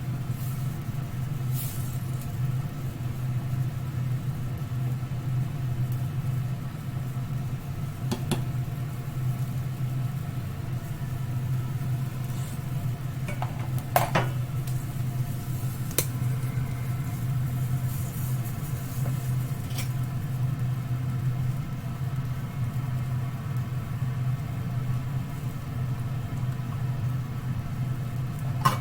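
Steady low hum of a kitchen exhaust fan, with a few light clicks and taps from utensils, the loudest about fourteen seconds in.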